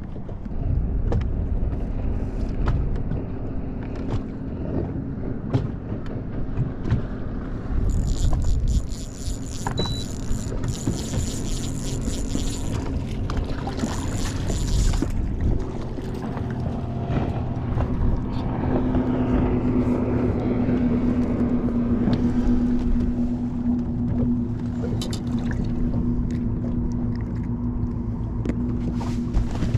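Wind on the microphone and a low rumble on a bass boat, with a steady motor hum underneath that swells in the second half. For several seconds from about 8 seconds in, a high whir runs as a fish is reeled in on a spinning reel.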